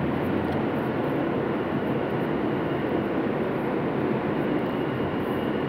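New York City subway car running between stations: a steady rumble and hiss of wheels on rail and the car's running gear, heard from inside the car.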